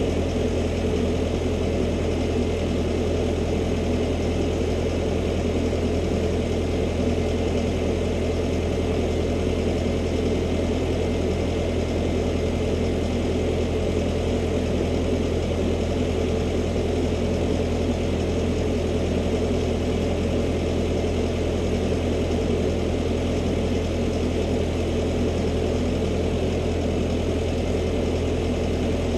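Diesel engine idling steadily, an even low rumble that does not change.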